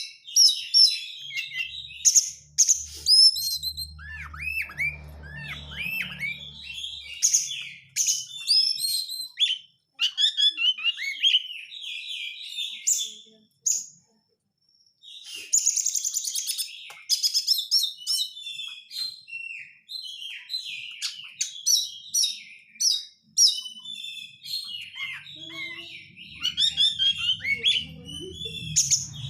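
Oriental magpie-robin (kacer) singing a fast, varied song of sharp chirps, whistled notes and dense chattering phrases, broken by a short pause about halfway through.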